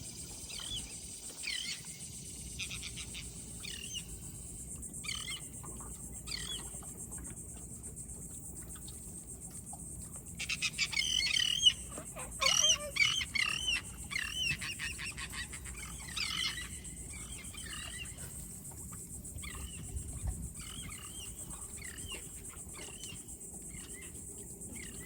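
Birds calling: scattered short chirps, with a louder flurry of rapid calls about ten seconds in, then sparser chirps again, over a steady high-pitched hiss.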